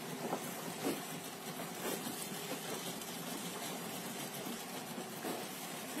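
Steady rush of river water around a boat, with a few short splashes in the first two seconds as a thrown cast net lands in the water.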